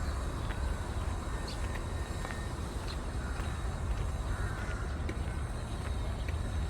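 A crow cawing, once clearly about four and a half seconds in, over a steady low rumble and a few faint clicks.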